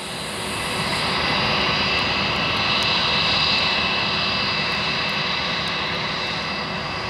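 An Airbus A320-232's IAE V2500 turbofan engines running at taxi power: a steady jet whine with high tones over a broad rush, rising in level over the first second and then holding.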